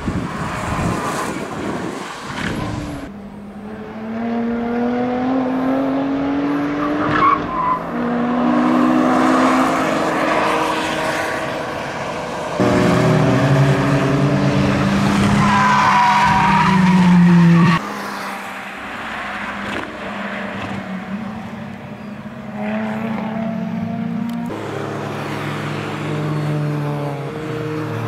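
Lotus Exige Cup 430's supercharged 3.5-litre V6 driven hard on track, its note rising and falling through gear changes and corners in several sections that change abruptly, loudest at full throttle about halfway through, with brief tyre squeal. Near the end other track-day cars pass.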